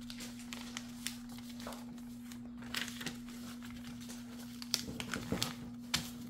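A sheet of paper being folded and creased by hand on a tabletop, rustling and crinkling in short scattered bursts that grow busier near the end. A steady low hum runs underneath.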